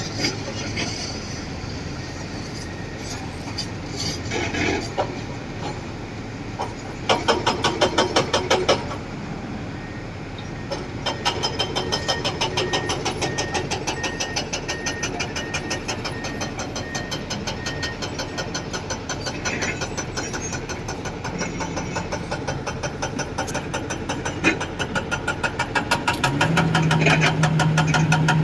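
Heavy diesel construction machinery running with a rapid, even knocking engine beat that gets louder near the end. A beeping alarm pulses for several seconds in the middle, and a steady low drone comes in near the end.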